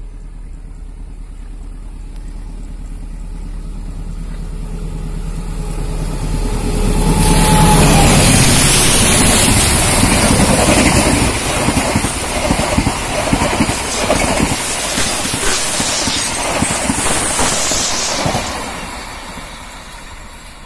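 Passenger train hauled by a CC 203 diesel-electric locomotive approaching and passing close by: the locomotive's engine grows louder over the first several seconds and is loudest as it goes by, then the coaches' wheels clatter on the rails before the sound falls away near the end.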